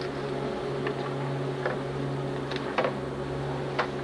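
A steady low hum, with a few sharp clicks and knocks scattered through it. The loudest knock comes a little before three seconds in, and another comes near the end.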